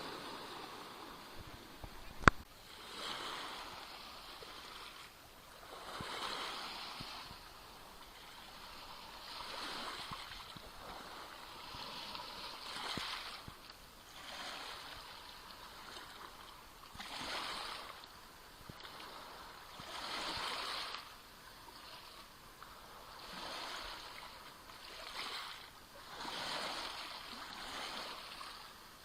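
Small Black Sea waves lapping onto the shore, a splash and hiss about every two to three seconds. A single sharp click sounds about two seconds in.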